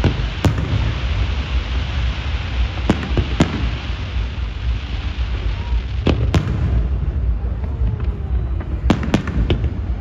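Aerial fireworks bursting: about eight sharp bangs, several in quick pairs, over a steady low rumble.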